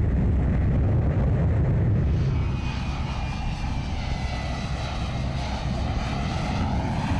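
F-35B Lightning II jet engine running as the jet hovers, a loud, steady deep rumble. About two seconds in the rumble thins and a high whine comes over it.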